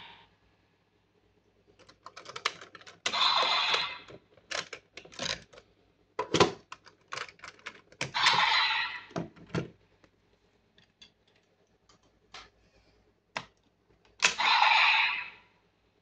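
Hard plastic toy parts of the DX Fever Slot Raise Buckle and Desire Driver belt clicking and scraping as they are handled and turned. There is a string of sharp clicks and three short scraping noises, each under a second long.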